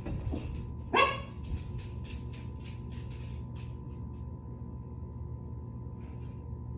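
A dog barks once, sharply, about a second in. A quick run of soft clicks or rustles follows, about four a second, for some three seconds.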